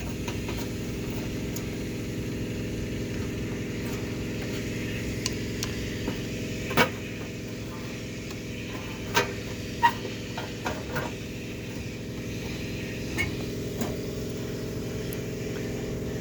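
Steady drone of a pressure washer's engine, with scattered sharp clicks and knocks of hand tools and metal parts being handled on a television chassis.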